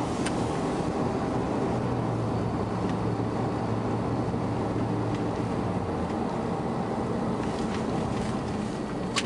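Steady engine and road noise inside a moving truck's cab, driving on a snow-covered highway. A low hum eases off about six seconds in, and a short click comes near the end.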